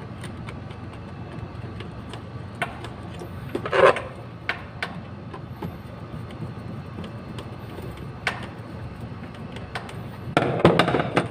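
Screwdriver and fingers working the terminals of a magnetic contactor: scattered small clicks and knocks as the wiring is tightened, a louder clack about four seconds in, and a dense run of knocks near the end, over a steady low hum.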